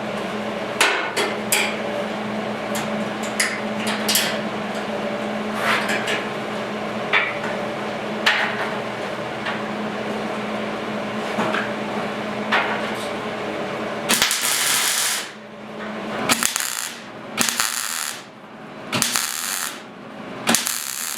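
Metal clinks and taps on a steel running board over a steady shop hum, then a power tool worked on the sheet metal in one longer burst about 14 seconds in, followed by several short bursts.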